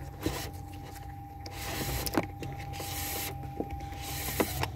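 Cables being pulled and rustling against plastic trim inside a car's centre console, with scattered small clicks and knocks from the handling, over a steady low hum.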